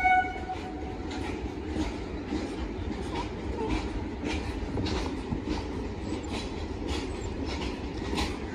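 Blue ICF passenger coaches rolling past on the rails: a steady rumble, with the wheels clicking over the rail joints every half second or so. A train horn trails off just at the start.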